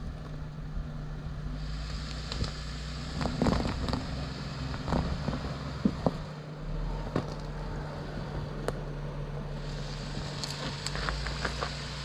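Short-wheelbase Jeep crawling over rocks, its engine running at low steady revs, with scattered knocks and crackles of tires and underbody scraping on rock.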